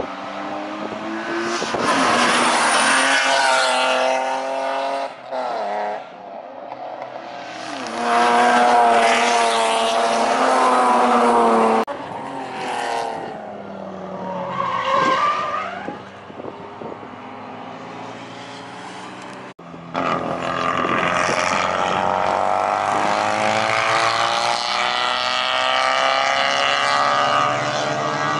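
Racing car engines driving past at speed on a circuit, revving hard, their pitch rising and falling through gear changes as several cars go by in turn; the loudest pass comes about a third of the way in.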